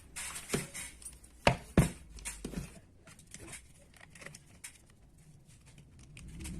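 Hard objects being handled: a few clicks, then two sharp knocks close together about a second and a half in, followed by a run of lighter clicks and taps.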